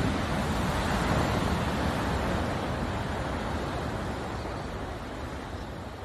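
Ocean surf washing onto a sandy beach: a steady rush of noise with a flickering low rumble, slowly getting quieter.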